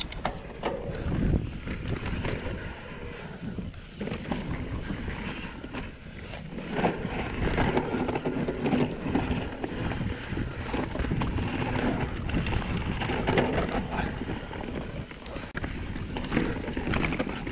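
Mountain bike descending a dirt forest trail: tyres on loose dirt and the bike rattling and knocking over bumps, with wind buffeting the camera's microphone.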